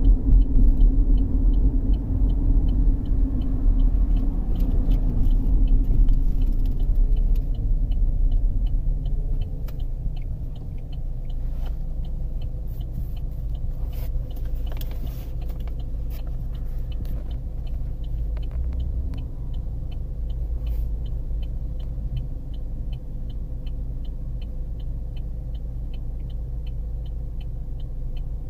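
2013 Chevrolet Equinox's 2.4-litre four-cylinder engine and road noise heard from inside the cabin on a test drive, louder for about the first nine seconds and then settling quieter and steady. The engine is running smoothly after the camshaft position actuator repair, with a faint regular ticking about twice a second.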